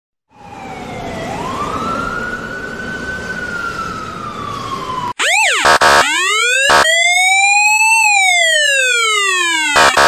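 A US police siren wailing over street noise in one slow rise and fall. Then, after a sudden cut about five seconds in, a louder and harsher Dubai police siren: a quick whoop, a few short blips, then a slow wail rising and falling.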